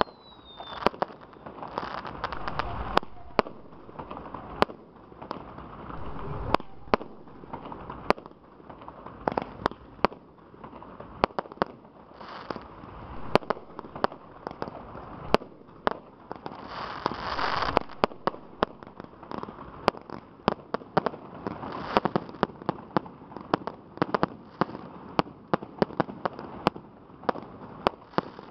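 Professional fireworks display: aerial shells bursting in a dense, irregular run of sharp bangs, with a rushing hiss between them.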